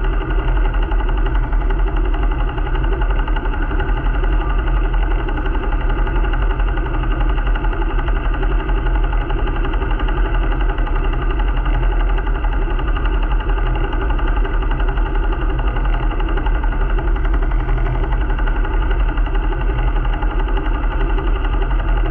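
Sailing yacht's inboard diesel engine running steadily under way, a constant low drone with no change in speed.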